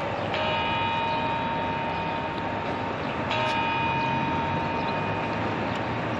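Midnight New Year's chimes (campanadas) of the Puerta del Sol clock on a Spanish TV broadcast: two bell strikes about three seconds apart, each ringing on with several sustained tones. These are the strokes that pace the eating of the twelve grapes.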